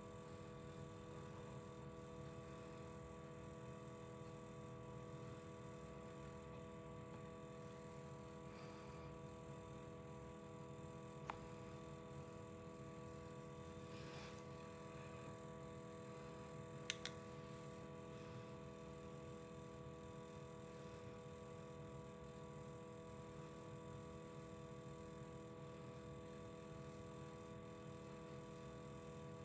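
Near silence: room tone with a faint steady hum, broken by a small click about eleven seconds in and a sharper double click about seventeen seconds in.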